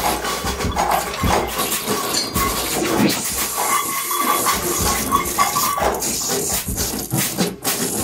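Free-improvised experimental music: a dense, noisy texture of scrapes, rattles, clicks and hiss, with a faint tone that comes and goes and a brief drop in level near the end.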